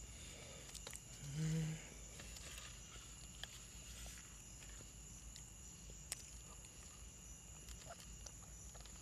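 Chewing and crunching dry chunks of cornstarch: scattered faint crisp cracks, with a brief low hum of the voice about a second and a half in.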